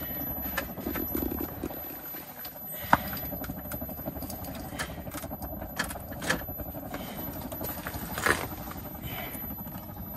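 A few sharp knocks and taps on the ice as a caught fish is handled and unhooked beside an ice-fishing hole, over a steady low background noise; the sharpest knocks come about three seconds in and just past eight seconds.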